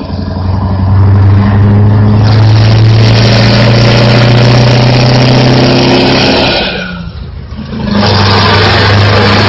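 Scania R-series truck engine with a straight-piped exhaust pulling under load, a loud, steady deep note. Near the end the throttle drops off and the note falls away for about a second, then it comes back on load at full level.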